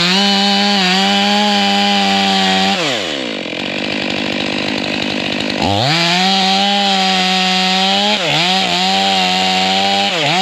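Chainsaw at full throttle cutting a white oak log, its note dipping and wavering under load. About three seconds in it falls back to idle, then revs up again just before six seconds and cuts on, with brief dips near eight and ten seconds.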